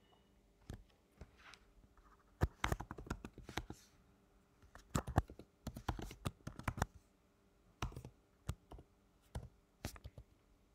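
Computer keyboard keys clicking in several short bursts of typing, with pauses between the bursts.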